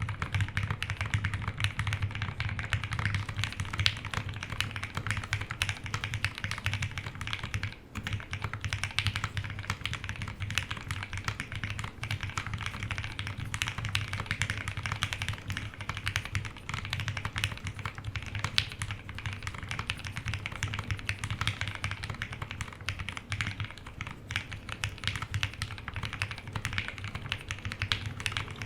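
Fast, continuous typing on a custom HHKB Polaris mechanical keyboard with lubed Gateron Black Ink v2 switches on a POM half plate with plate and case foam, and PBT keycaps, giving a deep, thocky keystroke sound. There is a brief pause about eight seconds in.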